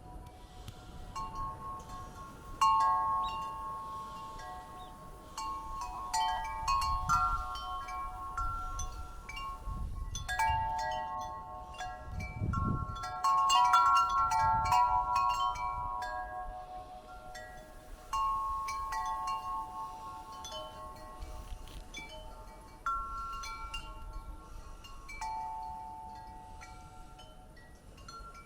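Wind chimes ringing irregularly in the breeze: many overlapping clear tones struck at random and dying away slowly, with low rumbles of wind a few times.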